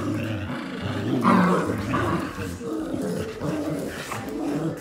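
Australian Shepherd and mini Australian Shepherd growling continuously in play as they tug against each other on a rope toy.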